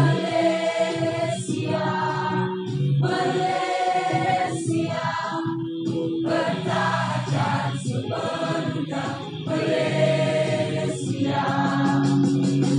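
Choral music: a group of voices singing long held notes in phrases a few seconds long, with short breaths between them.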